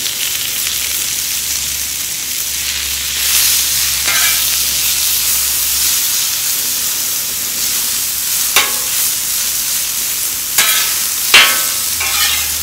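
Thin-sliced ribeye sizzling in oil on a flat-top griddle, a steady hiss that grows louder about three seconds in. Near the end a metal spatula chops and clanks against the griddle surface several times.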